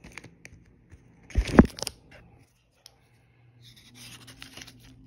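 Hands handling a freshly opened Yu-Gi-Oh booster pack: a loud rustle with a bump about a second and a half in, then the soft scrape of trading cards sliding over one another near the end.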